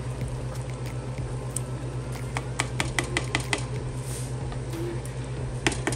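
Metal cookware clinking as a pot is covered with its lid: a quick run of sharp clinks about halfway through and another cluster near the end, over a steady low hum.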